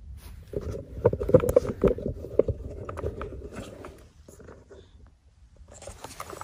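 Dry fallen leaves crunching and rustling close by, a dense crackle from about half a second in that dies down after about four seconds.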